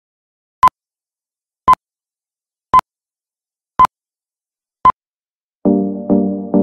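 Five short electronic beeps, all of one pitch, about one a second with dead silence between them. Music with sustained pitched notes begins near the end.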